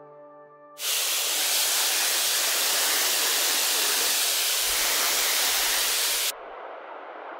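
Garden hose nozzle spraying a hard jet of water onto an open desktop computer tower, starting suddenly about a second in and cutting off abruptly near the end, when a much quieter hiss is left.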